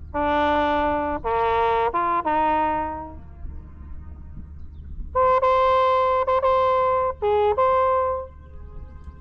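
A solo brass instrument like a trumpet plays slow, held notes in two short phrases of four notes each, with a pause of about two seconds between them, over a steady low hum.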